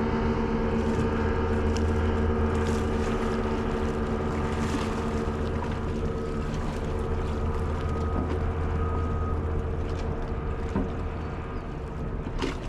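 Small motorboat's engine running steadily as it crosses the harbour, slowly fading toward the end, over a hiss of wind and lapping water.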